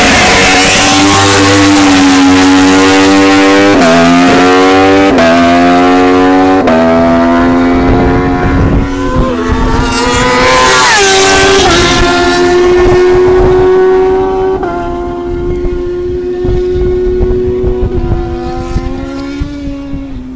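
Racing motorcycle launching hard from a standstill, its engine revving up through the gears with quick upshifts about four, five and seven seconds in. Its note then drops and holds steady, growing quieter as the bike pulls away down the track.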